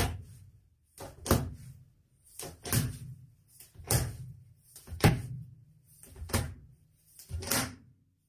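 Hands working pieces of noodle dough on a wooden chopping board: about seven dull thumps, one every second or so, as the dough is pressed and slapped down onto the board.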